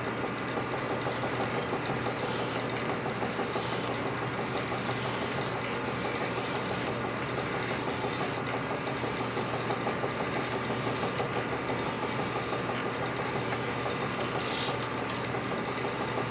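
Honing machine running steadily, its abrasive stone rubbing and rasping inside a metal bore as the part is worked back and forth, under a constant motor hum.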